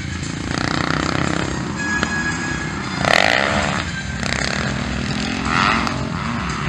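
Motocross dirt bike engines running and revving on the track, rising and falling in pitch as riders accelerate and ease off, louder about three seconds in and again near six seconds.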